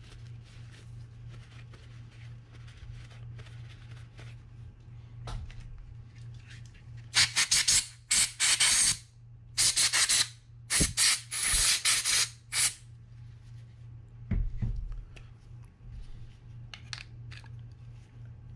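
A run of five or six short, loud hissing sprays from an aerosol can, with faint handling knocks of reel parts afterward, over a steady low hum.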